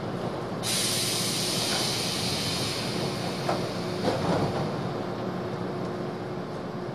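Compressed-air hiss from a stationary 113 series electric train. It starts suddenly about a second in and fades slowly, with two short clunks midway over the train's steady low hum.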